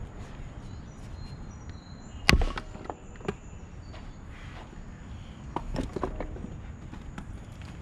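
Splitting axe striking and splitting a maple round with one sharp, ringing crack about two seconds in, then a few wooden knocks and clatters of split pieces around six seconds in.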